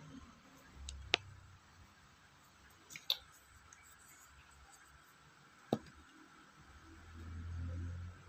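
Quiet room tone broken by three small sharp clicks, irregularly spaced about two seconds apart, with a low rumble rising near the end.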